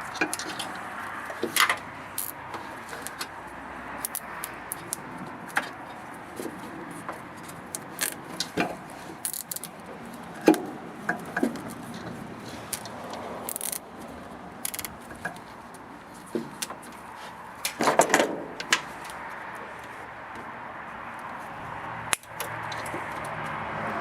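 Scattered clicks, light rattles and scrapes of hands working in an engine bay, fastening ties around power steering hoses, with a denser run of clicks about three quarters of the way through.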